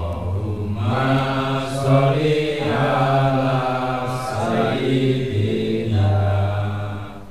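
A man chanting in a low voice, holding long drawn-out notes in one continuous phrase that stops near the end.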